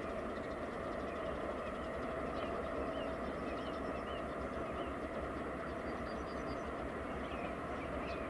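A train running on the line, a steady low rumble with a steady mid-pitched hum over it.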